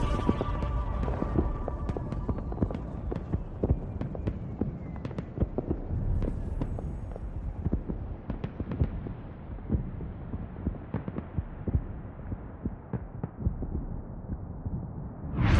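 Irregular crackling and popping over a low rumble, growing duller as it goes on, with a short rising whoosh at the very end.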